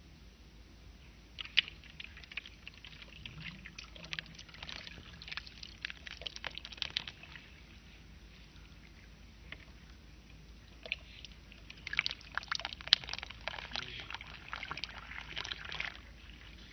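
Water poured from a plastic cup onto soil in a plastic tub, trickling in with many small crackles as it soaks in. The sound comes in two spells, the first starting about a second in and the second around eleven seconds in.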